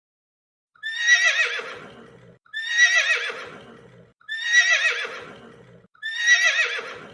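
Horse neighing: four identical whinnies about every 1.8 s, starting about a second in, each beginning high with a wavering pitch and trailing off lower.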